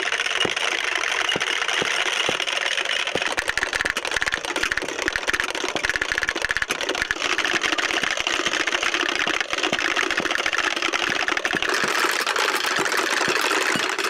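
Wooden Easter clappers (Klappern) rattled hard and fast in a dense, continuous clatter. This is the Holy Week clapping that stands in for the church bells from Maundy Thursday evening to Holy Saturday evening.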